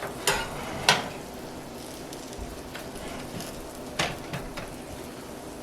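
Corn cakes frying in oil in a hot skillet, a steady sizzle. A utensil knocks sharply against the pan three times, twice near the start and once about four seconds in.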